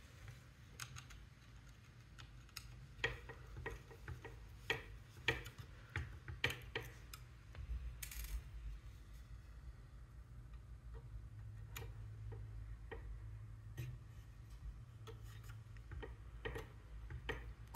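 Hobby servo in a robot arm driving the arm joint: irregular small clicks and ticks, with a faint low hum for a few seconds past the middle.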